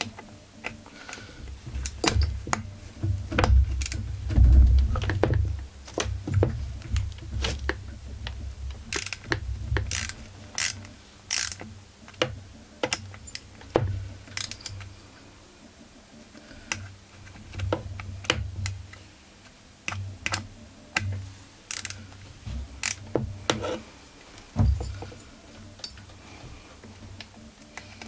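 Ratchet combination wrench clicking in irregular strokes, with metal tool clatter and low knocks as the chainsaw body is handled and braced on the bench.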